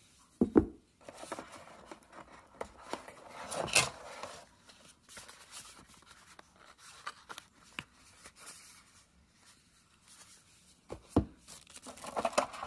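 Cardboard packaging handled by hand: a dull knock about half a second in, then rustling and scraping of the box, its tray and paper leaflet, scattered light taps, and another knock followed by crinkling near the end.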